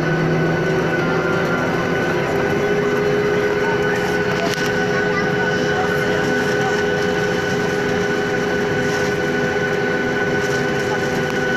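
Airliner engines heard from inside the passenger cabin: a loud, steady rushing noise with several steady whining tones held through it.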